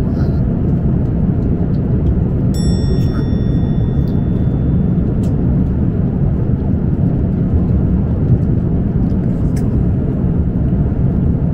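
Steady, loud low rumble of airliner cabin noise in flight, from the engines and airflow, unchanging throughout. A brief high tone sounds about two and a half seconds in.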